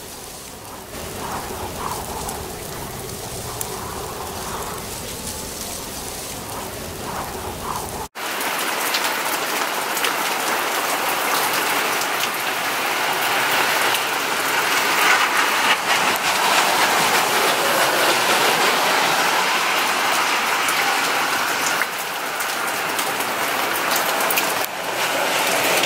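Heavy rain pouring onto a flooded street and pavement: a dense, steady hiss of falling and splashing water. It starts abruptly about eight seconds in, after a quieter opening with a few faint steady tones.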